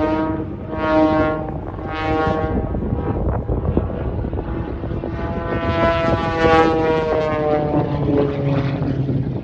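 Propeller airplane engine during aerobatic manoeuvres, its pitch swelling up and down three times in quick succession, then rising and falling again in one longer sweep.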